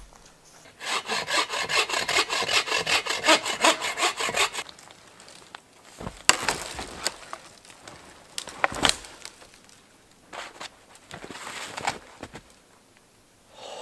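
A dry, dead hardwood log being wrenched by hand: a few seconds of rhythmic rasping and rubbing wood, then several sharp cracks as the log breaks.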